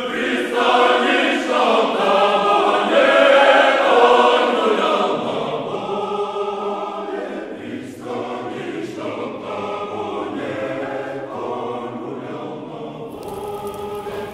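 Background music: a choir singing a Cossack folk song.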